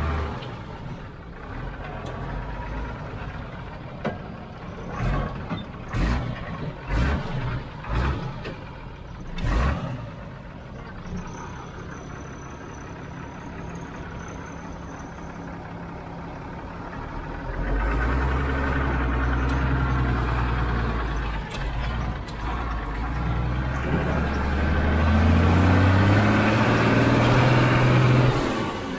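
Tata S-model 4x4 truck's diesel engine heard from the open cab: it falls back right at the start, and knocks and rattles come through in the quieter middle. About two-thirds of the way in the engine pulls loudly again, rising in pitch as the truck accelerates.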